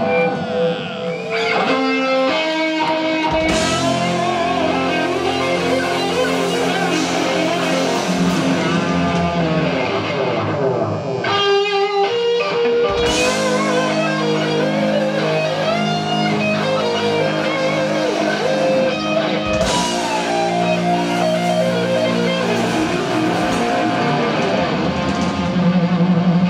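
Live rock band: an electric guitar plays lead lines with long, bending notes over drums and bass guitar, with a brief break in the low end about eleven seconds in.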